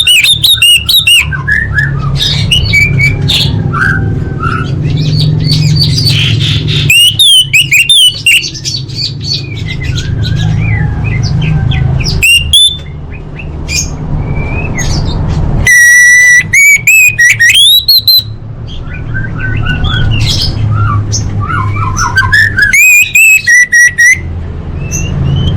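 Orange-headed thrush singing a varied, rapid song of whistles, chirps and trills in loud bouts with short pauses between, over a steady low hum.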